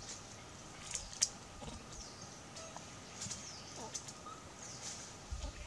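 Short, high chirps sliding downward, repeating every second or so, typical of small birds, with a few sharp clicks, the loudest about a second in. A low rumble comes in near the end.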